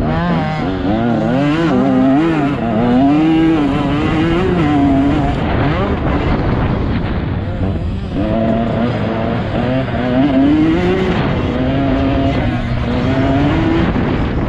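Motocross bike engine under hard riding, its pitch rising and falling over and over with throttle and gear changes. It eases off for a couple of seconds around the middle, then pulls hard again.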